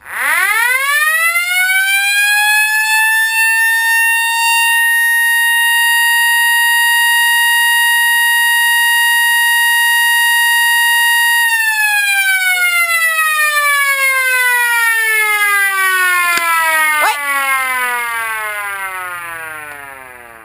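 Old electric air-raid siren, very loud, winding up quickly to a steady high wail. It holds that wail for about ten seconds, then is switched off and winds down, its pitch falling slowly as it fades.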